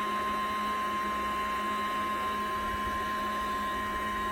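Small electric liquid pump of a prototype liquid-cooled air conditioner running steadily, a constant hum with a high, even whine.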